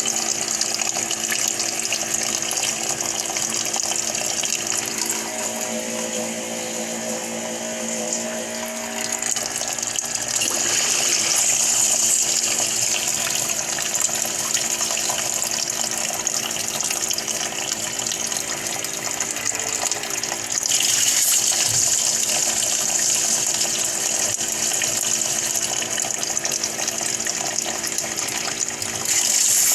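Portable water heater's pump running with a steady hum while water runs through the unit. The water noise gets louder about ten seconds in and again about twenty-one seconds in.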